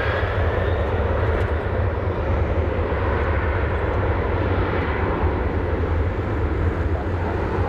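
Twin jet engines of a Boeing 767-300 airliner at takeoff power during its takeoff roll: a steady, loud rumble, heaviest in the low end.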